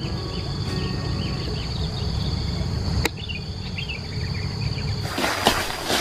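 Steady high-pitched insect drone in vegetation, with faint scattered bird chirps over a low rumble. A single sharp click about three seconds in.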